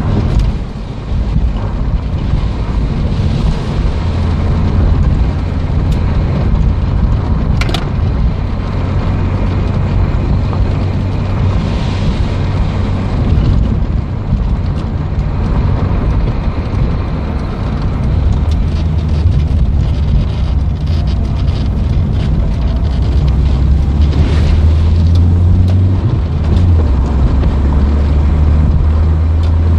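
Peugeot 205 1.6's four-cylinder petrol engine pulling the car along, heard from inside the cabin as a steady low drone mixed with tyre and road noise, with a single sharp click about eight seconds in.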